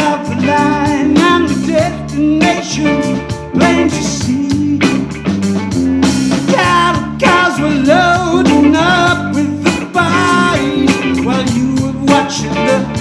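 Live rock trio playing an instrumental passage: electric guitar leading with bending, wavering notes over bass guitar and a drum kit's steady beat.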